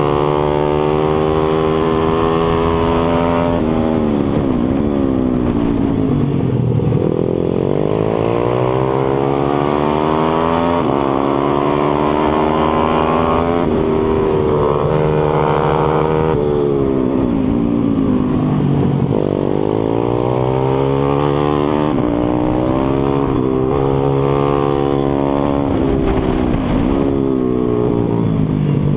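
Pit bike's 140cc single-cylinder four-stroke engine at racing speed, heard on board: it revs up hard, drops in pitch, and climbs again every few seconds as the rider shifts and backs off for corners.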